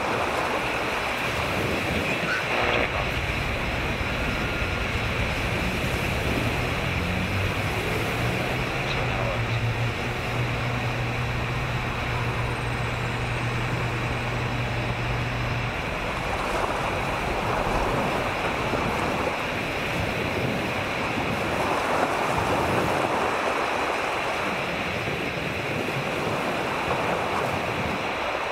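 Ocean waves washing on a beach: a steady rush of surf that swells and falls back every few seconds. A low steady hum sounds through the first half and stops about halfway through.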